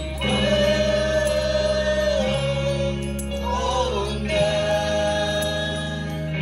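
Mixed choir singing a Christmas song over instrumental accompaniment, in long held notes.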